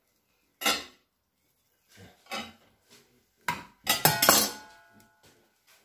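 Metal spatula clinking and knocking against a glass baking dish and a ceramic plate: a few scattered clinks, then a louder clatter about four seconds in that leaves a short ringing tone.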